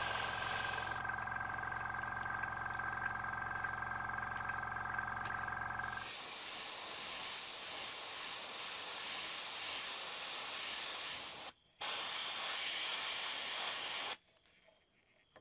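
Airbrush spraying paint: a steady hiss of air, with a steady whine over it for the first six seconds. The hiss breaks off for a moment, resumes, then stops abruptly near the end.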